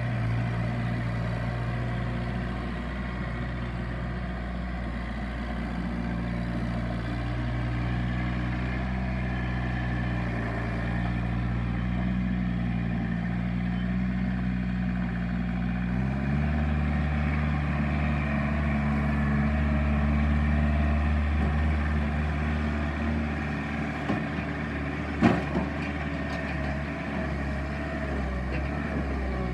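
John Deere 110 backhoe loader's diesel engine running steadily. Its note shifts abruptly about halfway through as the engine speed changes, and there is one sharp knock near the end.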